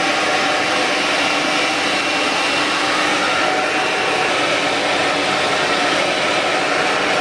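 Handheld hair dryer blowing steadily while drying hair: a constant, loud rush of air with a faint steady whine in it.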